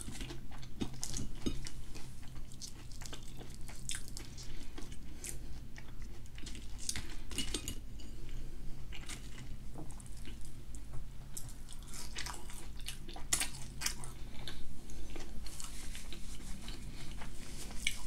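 Close-miked eating sounds: a person biting into and chewing battered onion rings, with wet chewing, small crunches and now and then a light clink of the plate.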